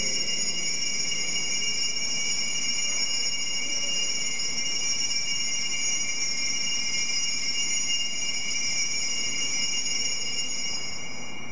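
Altar bells shaken continuously at the elevation of the chalice, the signal of the consecration: a steady, high-pitched metallic ringing of several tones that fades out near the end.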